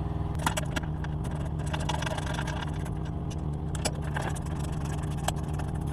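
Scattered clicks and clinks of hand tools taking a part off a motorcycle, over a steady low mechanical hum.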